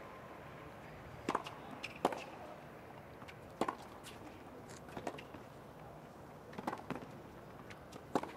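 Tennis rally on a hard court: a series of sharp pops from racket strikes on the ball and the ball's bounces, about one every second or two.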